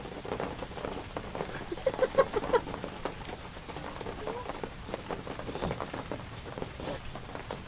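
Steady rain falling and pattering on surfaces around, with a brief faint vocal sound about two seconds in.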